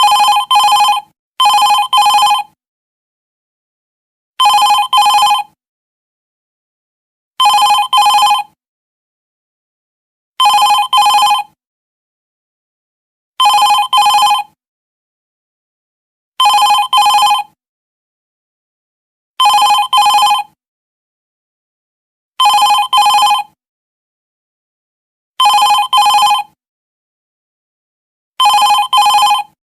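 Office telephone ringing with a double ring: two short rings, then a pause, repeating about every three seconds.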